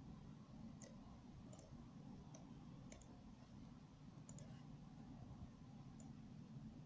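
Faint computer mouse clicks, a few scattered and sometimes in quick pairs, over a low steady hum.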